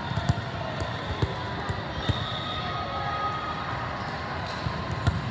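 A handful of irregular ball thuds, volleyballs bouncing and being struck, echoing in a large hall over a steady murmur of distant voices.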